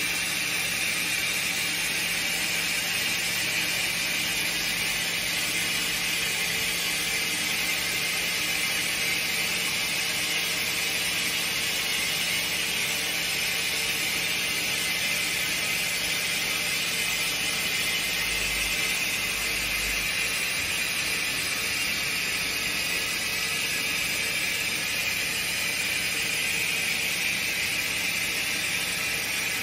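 Steady machine hiss and hum from a CNC sliding-headstock automatic lathe, even throughout with no strikes or rhythm.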